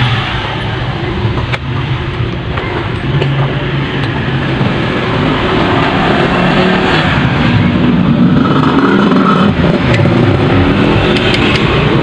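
Motor vehicle engines running and revving, rising and falling in level, with a few light clicks.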